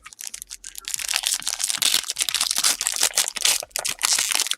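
Foil trading-card pack wrapper crinkling and crackling as it is torn open and handled, a dense run of sharp crinkles that gets louder about a second in.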